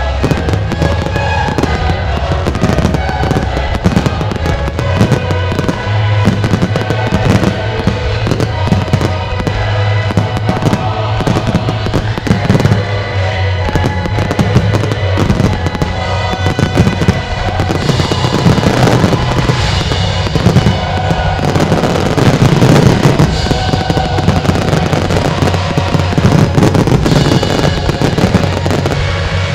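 Display fireworks going off in a dense, continuous barrage of bangs and crackle from aerial shells and cakes, with a music soundtrack playing beneath. The crackle grows brighter and denser in the second half.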